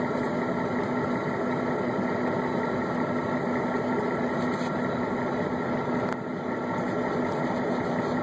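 Semi-truck pulling a multi-axle tanker trailer at road speed: a steady engine drone with a constant low hum under even road and wind noise.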